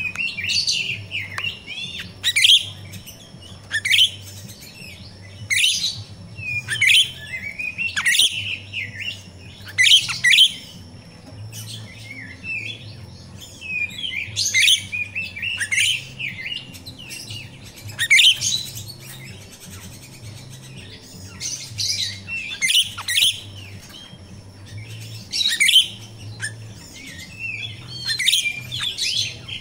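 Caged grosbeak starling (jalak rio-rio) calling in short clusters of high-pitched chirps, a new burst every second or two.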